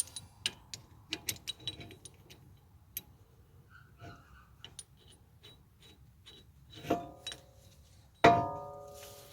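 Light metallic clicks and taps of tools and brake parts being handled, then two ringing metal clanks, the second and louder one about eight seconds in and ringing on as it dies away.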